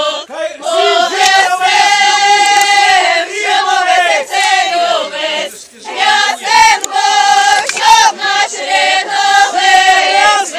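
A group of people singing together in loud, held notes, with a short break about halfway through.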